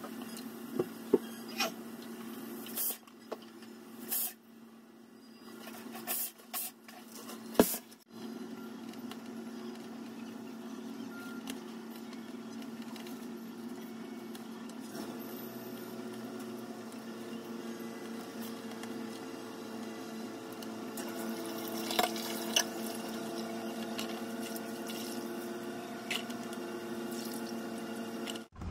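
Wet food being handled at a stainless-steel kitchen sink: squishing and dripping sounds as sliced potatoes and shredded vegetables are moved between bowls, with several sharp knocks of bowls and utensils in the first few seconds, over a steady low hum.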